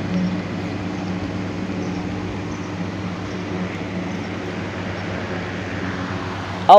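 Steady low hum with hiss: room noise from running ceiling fans and the mosque's open PA microphone.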